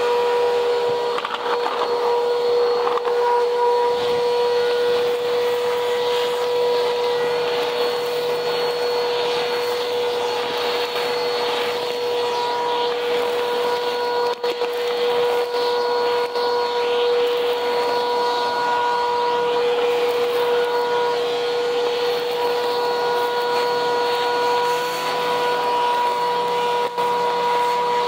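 Vacuum cleaner running steadily with a high motor whine over a rushing airflow, picking up grit and debris from a cement floor with faint crackles.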